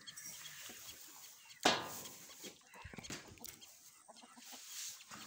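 Chickens clucking, with one loud, sharp call about a second and a half in.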